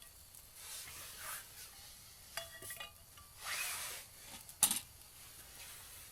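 Camp cookware being handled: scraping rubs against a pan, a short ringing clink of metal or crockery about two and a half seconds in, and a sharp knock a little later.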